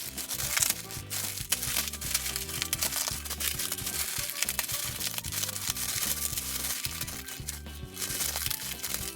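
Dry instant noodle block being crushed by hand inside a plastic zip bag: irregular crunching and plastic crinkling, over background music.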